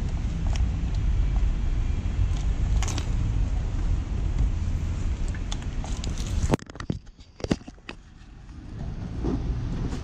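Low rumble from a 2021 Sinnis Terrain 125 motorbike on the move, engine and wind on the camera mixed together. About six and a half seconds in it drops off suddenly, a few sharp clicks and knocks follow, and then the rumble builds back up toward the end.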